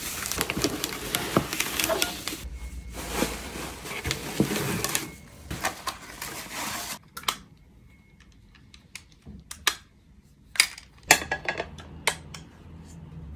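Bubble wrap and plastic packaging rustling and crinkling as new cookware is unwrapped from its box. After about seven seconds it goes quieter, leaving a few sharp clicks and knocks as the pans are handled.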